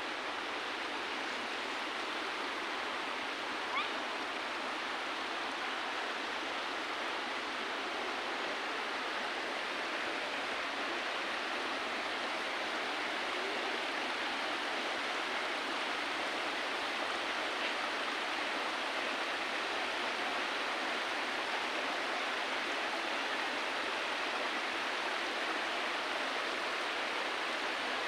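Steady rush of running water, with one brief sharp sound about four seconds in.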